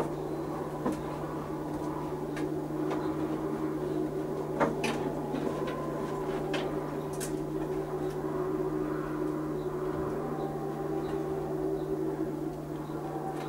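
A steady low hum with faint sustained tones above it, broken by a handful of light clicks and knocks.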